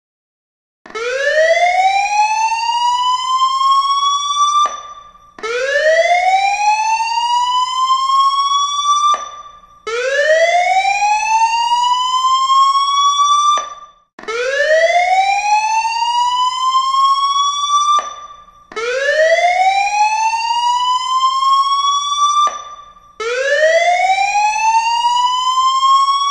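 House burglar-alarm siren sounding: a loud electronic wail that climbs in pitch for about four seconds, cuts off and starts again, six times over.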